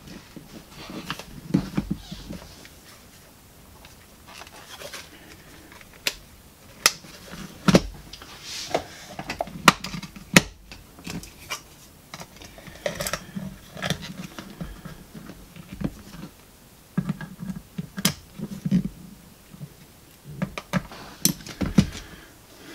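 Handling noise from reassembling the plastic case of a Texas Instruments Datamath II calculator: scattered clicks, taps and knocks of plastic parts and small tools being picked up and set down, at irregular intervals.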